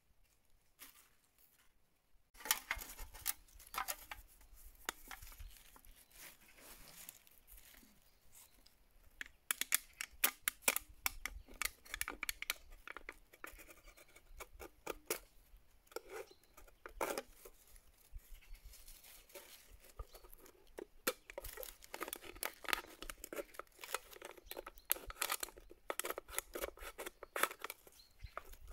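A knife cutting through the thin aluminium wall of a drink can: a crackling, scraping run of quick sharp clicks that starts about two seconds in and comes in spells.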